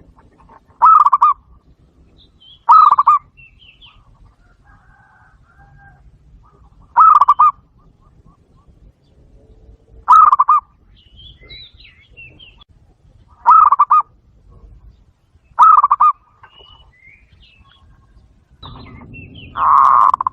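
Zebra dove calls played over a Bluetooth speaker: six short trilled coos, each about half a second long and a few seconds apart, with faint chirps of other birds between them. Near the end comes a longer, louder call over a low rumble.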